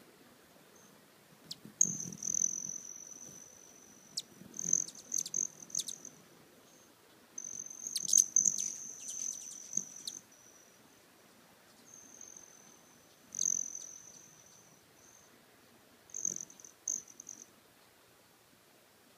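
Male broad-tailed hummingbird's wing trill: a high, shrill, steady buzz that comes in about six bouts of one to three seconds as the bird flies about the feeder, with short sharp ticks mixed in.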